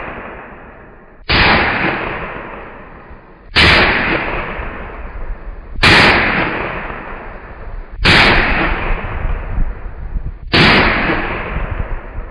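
Five gunshots from a Taurus TX22 .22 LR pistol firing Aguila Super Extra into ballistic gel, evenly spaced about every two and a quarter seconds, each with a long fading echo.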